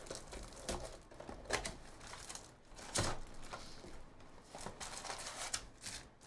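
Plastic shrink wrap being torn off a cardboard trading-card box and the box flaps pried open: crinkling plastic and a run of sharp cardboard clicks and snaps, the loudest about three seconds in.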